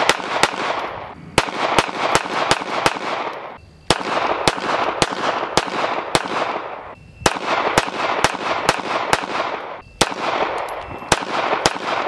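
.380 ACP semi-automatic pistols firing in rapid strings, about three or four shots a second, each shot with an echoing tail. Four strings follow one another, broken by brief gaps where one pistol gives way to the next.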